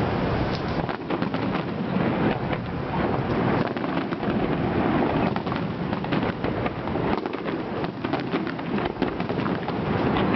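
Fireworks display going off as a continuous barrage of overlapping bangs and crackles, without a pause.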